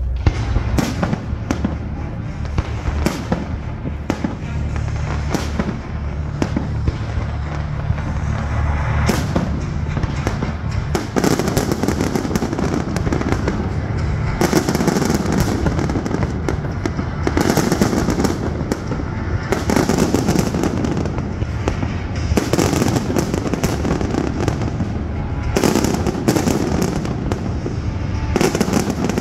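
Aerial fireworks display: a steady run of shell bursts, booms and pops, turning from about eleven seconds in into dense clusters of crackling.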